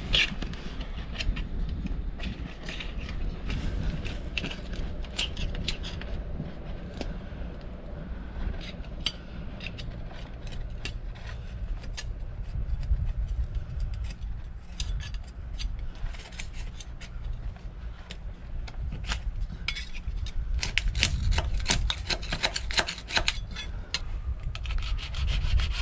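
Hand scraper scraping old antifouling paint off a sailboat's underwater hull in repeated, irregular strokes, which come thicker and faster in the last few seconds.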